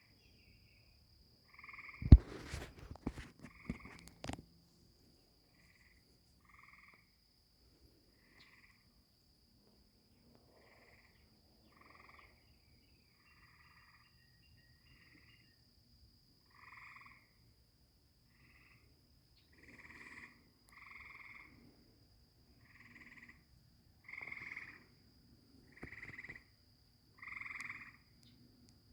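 Tree frogs giving short trilled calls about half a second long, one after another every second or two, louder and closer together in the second half, over a steady high-pitched insect trill from crickets. A few sharp knocks and one loud thump come about two to four seconds in.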